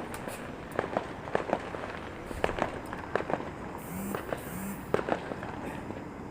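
Fireworks and firecrackers going off, an irregular string of sharp bangs and pops several times a second over a crackling background.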